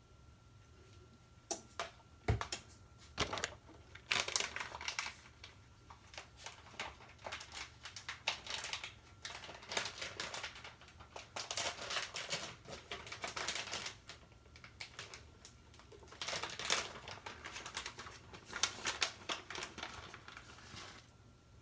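Plastic packaging crinkling and rustling in irregular bursts of quick crackles, with a few sharp clicks and a knock about two seconds in.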